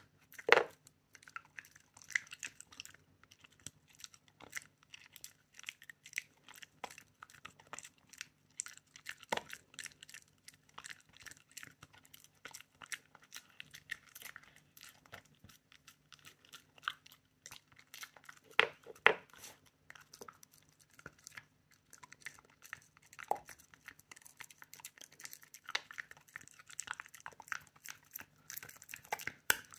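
Shiba Inu chewing and crunching a treat: a steady run of small clicks and crunches, with a few louder bites about half a second in, around two-thirds of the way through, and a little later. A faint steady hum sits underneath.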